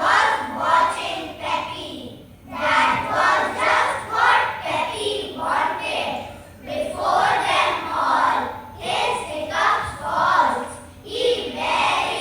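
A group of children's voices reciting a poem together in unison, in phrases with brief pauses about two, six and a half, and eleven seconds in.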